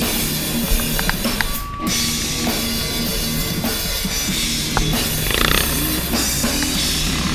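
Rock music with drums.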